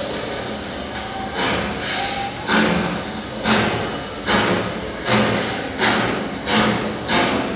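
Steady, evenly spaced knocking strikes, about one every three-quarters of a second, beginning about a second and a half in over a low hiss.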